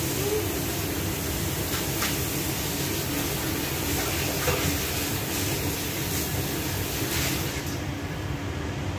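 Tap water running into the sink with a steady hiss, stopping near the end, with a few light clicks, over the continuous hum of a kitchen fan.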